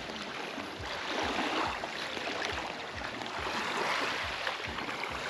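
Small waves washing on a sandy river beach, swelling and fading every second or two.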